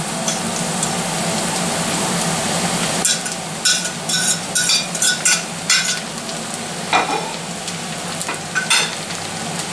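Shredded chicken sizzling as it lands in a frying pan of hot oil, carrot and onion, with a steady frying hiss. From about three seconds in comes a quick run of sharp clicks and scrapes as a plate's edge knocks the last pieces into the pan, then a few more clicks near the end as a spatula starts stirring.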